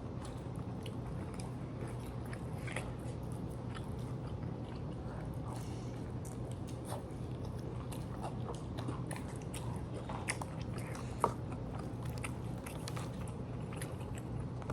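Close-up chewing and biting into crunchy fried takeout food, with scattered small crunches and mouth clicks over a steady low hum.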